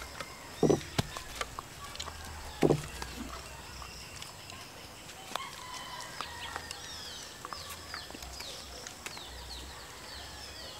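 Chicken clucking: two loud short clucks, the first under a second in and the second near three seconds. Small birds chirp in quick falling notes through the second half, over scattered light clicks and taps.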